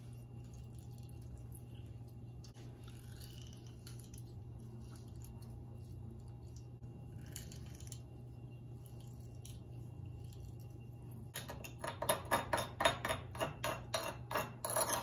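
Metal spoon stirring lime juice in a stone molcajete, clinking quickly against the stone bowl, starting about three and a half seconds before the end. Before that there is only a faint steady hum, with a few soft sounds from limes being squeezed in a metal hand press.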